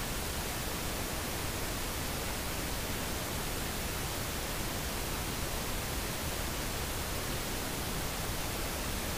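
Steady, even hiss of recording background noise, with nothing else heard.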